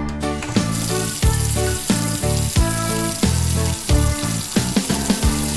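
Tap water running into a stainless steel sink and splashing over a watermelon being rubbed clean by hand, starting about half a second in, under background music with a steady beat.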